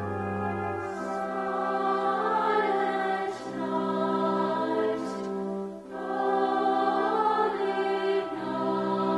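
A choir singing a slow piece in long held chords; a low bass note drops out about a second in.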